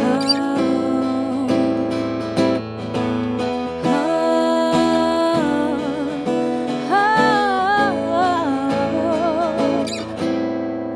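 Intro of a pop-country song: acoustic guitar strumming chords, with a melody line that slides and wavers above it from about the middle on.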